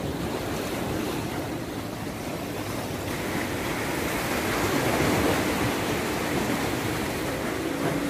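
Sea surf washing against shoreline rocks, with wind on the microphone; the surf swells a little a few seconds in.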